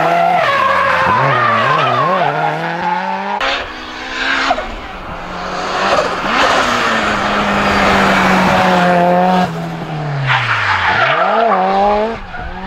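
Opel hillclimb race car's engine revving hard, its pitch climbing and dropping again and again with gear changes and throttle lifts through the bends, with tyre squeal from the car being slid. The sound changes abruptly twice as the view cuts.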